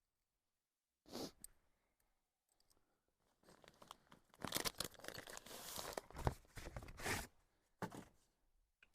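Rustling and crinkling handling noise in irregular bursts, a short one about a second in and a longer stretch in the middle.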